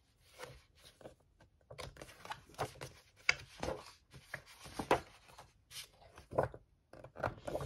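Pages of a large hardcover book being turned quickly one after another: a dozen or so short paper swishes and flaps with brief pauses between them.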